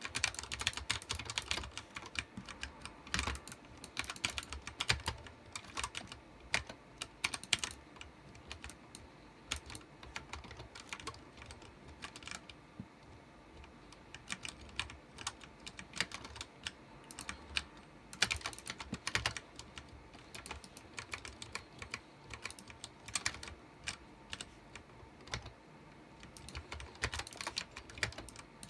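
Typing on a Ducky One 2 Mini 60% mechanical keyboard with Cherry MX Brown tactile switches: quick, irregular runs of key presses, thinning to sparser, lighter strokes for a few seconds near the middle.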